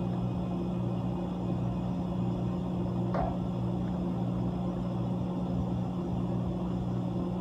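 Whirlpool ice machine's refrigeration compressor running with a steady low hum, with one brief sharp sound about three seconds in.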